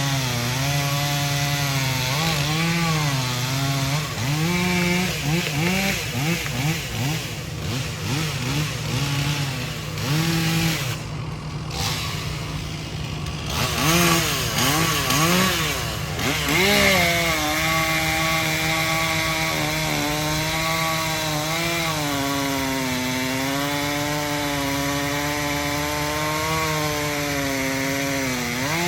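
An engine running hard under changing load, its pitch repeatedly dipping and recovering in quick arches through the middle, then holding steadier with a slow waver.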